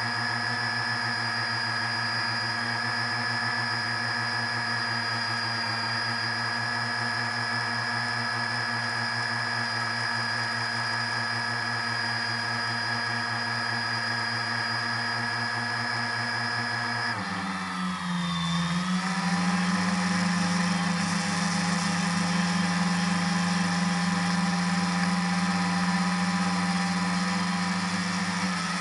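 Multirotor drone's electric motors and propellers, heard from the drone's own camera, giving a steady whine made of several tones. About two-thirds of the way through, the pitch dips and swings back as the motors change speed, then holds steady and a little louder.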